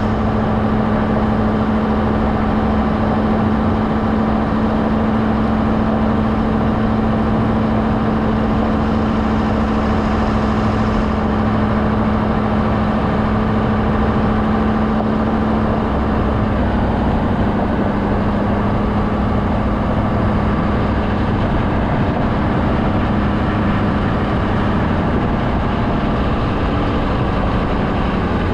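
Truck engine running steadily at low speed, its pitch dropping slightly about sixteen seconds in.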